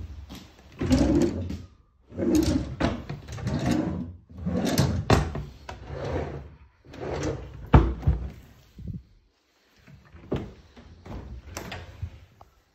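Kitchen drawers being pulled open and pushed shut several times, sliding on their runners, with a sharp knock a little before the two-thirds mark as one shuts. Quieter door handling near the end.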